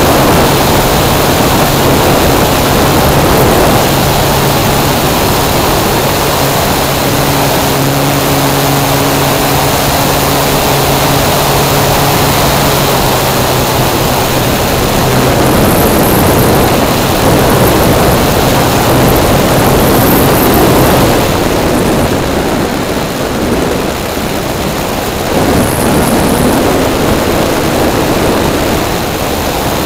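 Onboard sound of a large electric-powered RC model Piper PA-18 in flight: a loud rush of wind over the airframe and camera, with a steady hum from the electric motor and propeller. About two-thirds of the way in the hum stops and the rush eases for a few seconds.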